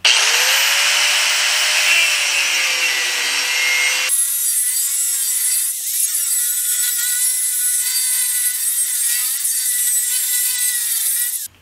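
Angle grinder with a cutoff wheel cutting across the steel wall of a gas cylinder. The motor spins up at the start, then runs with a steady whine over a harsh grinding hiss, its pitch wavering as it bears down in the cut. It stops abruptly near the end.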